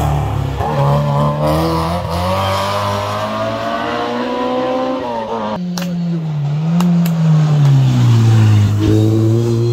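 Racing car engines on a hill-climb course. A hatchback touring car accelerates away, its note climbing, dropping at a gear change, then climbing again. A single-seater formula car then arrives: its engine note falls as it slows into the bend, with a few sharp pops, then rises again as it accelerates out.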